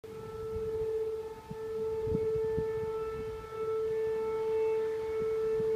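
A steady, horn-like drone held at one unchanging pitch with a ring of overtones, the so-called trumpet sound in the sky, briefly dipping about a second and a half in. Low rumbling thumps sit underneath.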